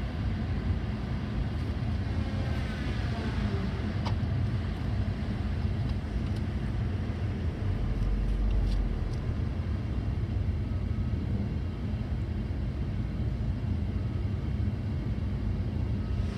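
Cat 552 tracked feller buncher working: its diesel engine runs with a steady low rumble. A brief rising-and-falling whine comes about three seconds in, and a deeper low swell comes around eight seconds in.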